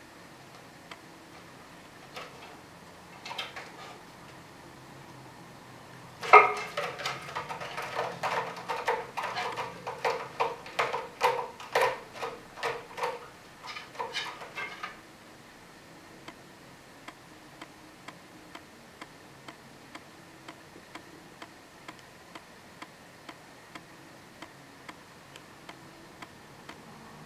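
Cat clawing and scrambling at a sisal-wrapped cat tree post: a quick run of rasping strokes with a hollow ring from the post, starting about six seconds in and lasting about eight seconds. Faint steady ticking runs before and after it.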